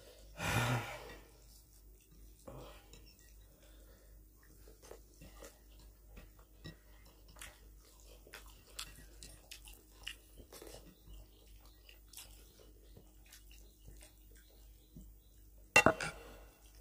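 Close-up eating sounds of two people eating rice and mutton curry by hand: chewing, and fingers mixing rice on the plates, with many small scattered clicks and smacks. A short louder sound comes about half a second in, and a sharp knock, the loudest sound, comes about a second before the end.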